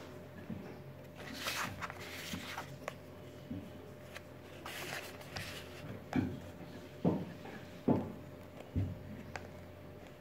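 Hands handling a cardboard product box: a couple of soft rustles, then four soft knocks about a second apart, over a faint steady hum.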